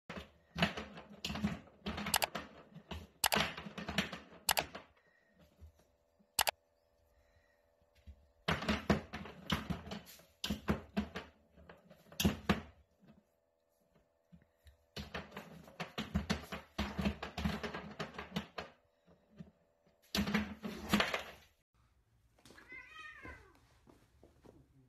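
Plastic swing-top bin lid clattering as a cat bats it with a paw, spinning on its pivot and clacking against the rim in rapid runs of clicks a few seconds long, with pauses between the runs. Near the end, a short cat meow.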